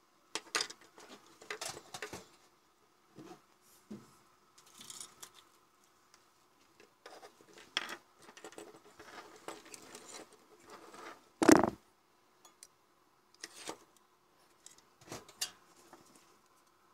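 Handling noise: irregular clicks, taps and scrapes as a bulb's plastic base and circuit board are moved about and set down on a wooden tabletop, with one loud knock about two-thirds of the way through.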